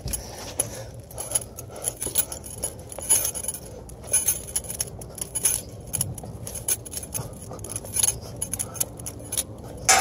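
Irregular metallic jingling and clinking of a climber's gear, with knocks of hands and boots on the rungs of a metal wall-mounted ladder as someone climbs it.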